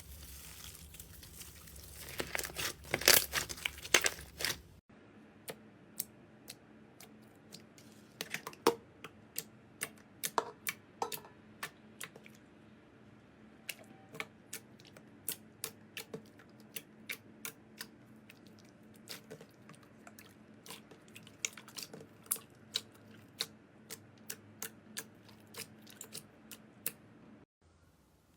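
Slime being squished and worked by hand: a few seconds of dense crackling and crunching, then a run of sharp, separate sticky clicks and pops, a few each second.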